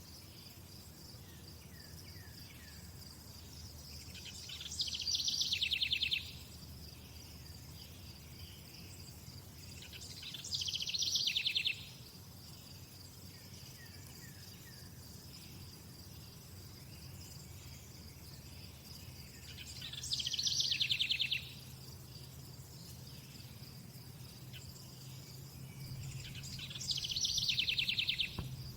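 Crickets trilling steadily on one high note, with four louder, rapidly pulsed trills that each swell over a second or two and then cut off abruptly.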